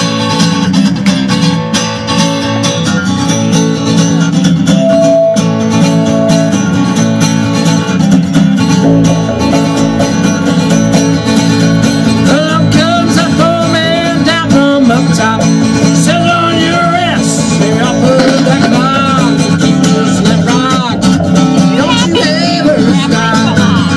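Live acoustic country-bluegrass music: an acoustic guitar strummed over a plucked upright double bass, with a man's voice singing from about halfway in.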